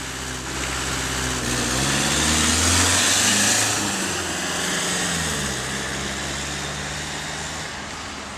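Car engine pulling away and accelerating: the engine note climbs, drops at about four seconds as if at a gear change, then holds steady while the sound slowly fades.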